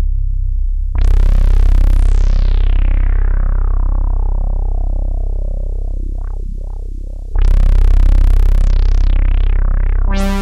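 Roland synthesizer playing a Juno-106-modelled patch of saw and sub oscillators: low held notes, each starting bright and then darkening as the filter closes. The first comes in about a second in, the next near seven seconds, and another starts near the end.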